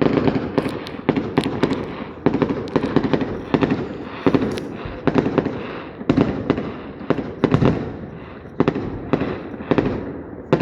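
Aerial fireworks going off in rapid succession: deep booms followed by clusters of sharp crackling pops, each group fading before the next about every second.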